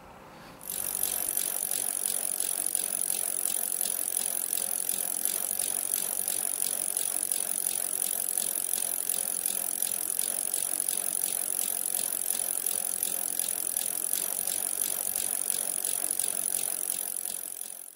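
Bicycle freewheel ratchet ticking rapidly and evenly as a wheel spins. It starts suddenly about a second in and fades out at the end.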